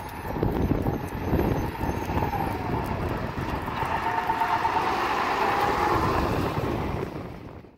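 A 2020 Peterbilt 520 garbage truck with a Curbtender PowerPak body drives up and passes close by. Its engine and tyres grow louder as it nears, and a steady high whine runs through the middle of the pass. The sound cuts off just before the end.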